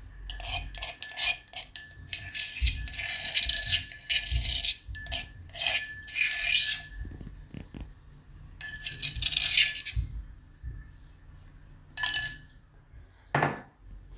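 Steel spoon scraping and tapping against stainless steel dishes in several short bouts while dabbing out garlic-chili chutney, a faint steady ring hanging on from the metal.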